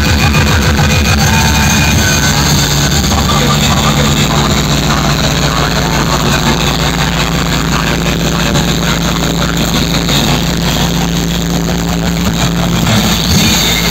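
Loud music played through a large stacked DJ speaker system, with a heavy, steady bass.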